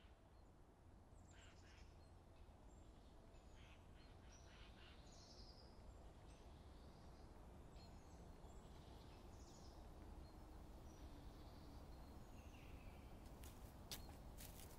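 Faint woodland ambience: scattered bird chirps and twitters over a low, steady background rumble, with a few sharp clicks near the end.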